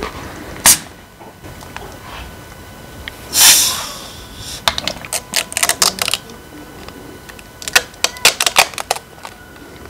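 A 2.5-litre plastic Fanta bottle's screw cap being twisted open: a sharp click, then a short hiss of carbonation escaping about three seconds in. After that come two runs of quick crackling plastic clicks, the later one as the plastic label is peeled off the bottle.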